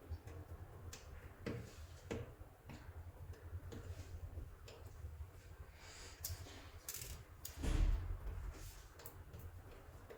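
Hands working soft clay: faint scattered clicks and short sticky handling noises, with one dull thump about eight seconds in.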